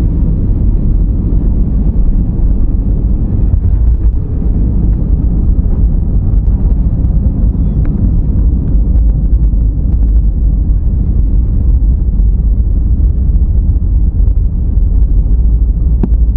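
easyJet jet airliner, a loud steady low rumble of engines and rushing air.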